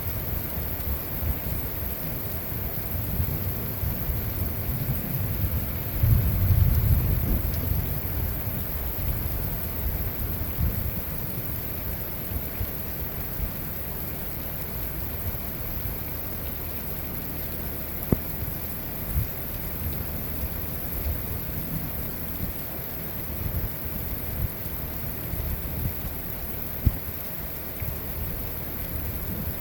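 Heavy thunderstorm downpour hissing steadily, with a low rumble of thunder that swells about six seconds in and then fades. A few sharp taps of drops hitting something close by come later.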